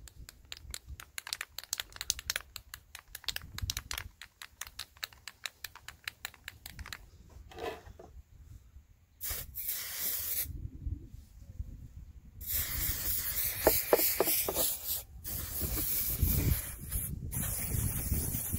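Aerosol spray-paint can shaken, its mixing ball rattling rapidly for about seven seconds, then sprayed in about four hissing bursts.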